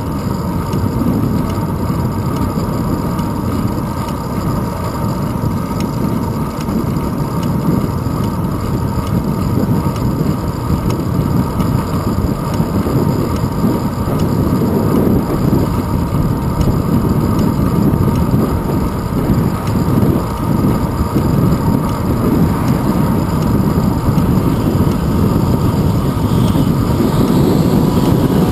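Steady, loud rush of wind buffeting the microphone of a handlebar-mounted GoPro Hero 2 on a moving bicycle, mixed with road rumble from the tyres rolling on asphalt.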